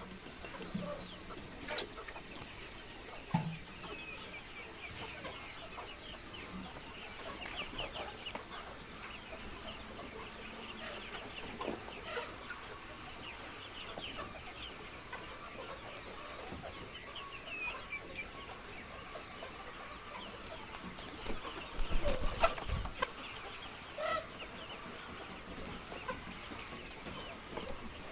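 A flock of chickens clucking and calling continuously, many short overlapping calls at once. About three-quarters through there is a louder burst of knocking and rumbling.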